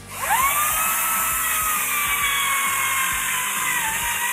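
Makita 40V Max XGT GCU04 brushless cordless chainsaw starting with no pull start: the motor and chain spin up with a quickly rising whine, then run steadily at full speed. About four seconds in the pitch dips slightly as the chain bites into a wooden board.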